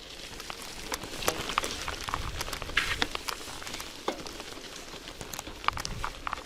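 Bicycle tyres churning through wet mud, a steady hiss broken by many irregular squelching clicks and crackles, as the tread clogs with mud.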